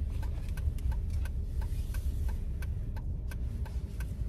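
Jeep's turn signal clicking steadily, about three ticks a second, over the low steady rumble of the car inside the cabin.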